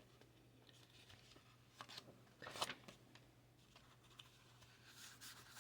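Near silence with a faint steady low hum, broken by two short rustles of paper being handled about two and two and a half seconds in.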